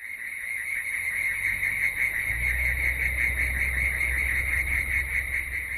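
A loud, steady insect chorus pulsing rapidly at a few high pitches, with a low rumble joining about two seconds in.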